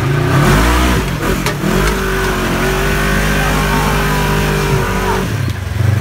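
Polaris RZR XP 1000 engine in a custom rock buggy revving under load as it climbs a rock ledge: it rises in surges, holds at high revs, then drops off about five seconds in.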